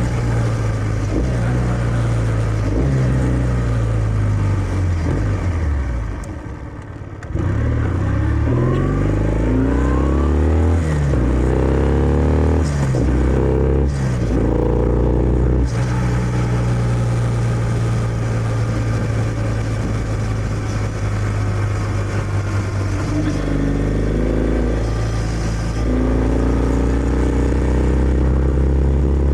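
Kawasaki W650's air-cooled parallel twin through its stock exhaust, heard while riding. The engine note falls and quiets as the bike slows about six seconds in. It then climbs in pitch through several upshifts, each shift a brief drop, and settles into a steady cruise for the second half.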